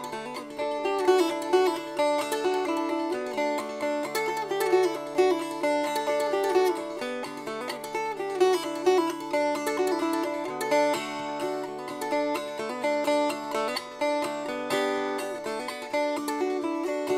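Background music of quick, picked plucked-string instruments over a low held note.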